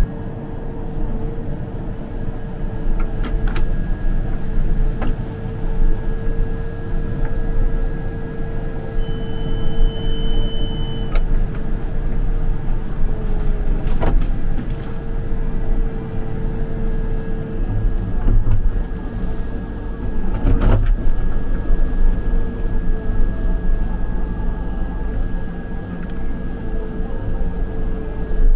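Backhoe engine running steadily under load with a constant whine over a low rumble, as the backhoe fills holes back in; a couple of sharp knocks come about halfway and about two-thirds of the way through.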